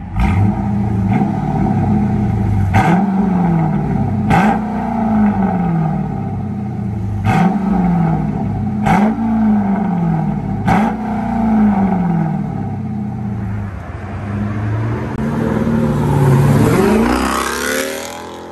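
2014 Jeep Grand Cherokee engine through a Kinney's Tunnel Ram performance exhaust, blipped six times at standstill, each rev rising sharply and falling back toward idle. It then settles briefly and accelerates away near the end.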